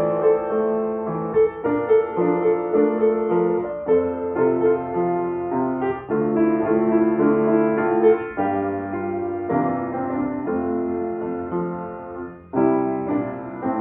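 Baldwin upright piano played slowly: a melody over held chords, with a short pause near the end before a new chord sounds.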